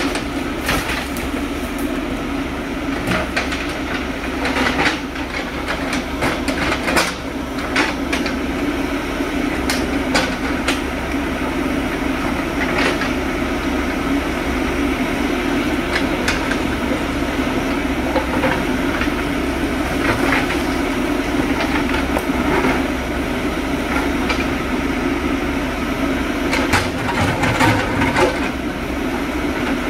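JCB backhoe loader's diesel engine running steadily under load, with scattered knocks and clatter of rock as the backhoe bucket digs into the stony slope, a cluster of knocks near the end.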